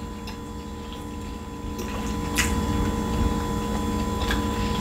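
Close-up chewing of a mouthful of baked macaroni and cheese, with wet, squishy mouth sounds and soft clicks and one sharper click about halfway through. A faint steady hum runs underneath.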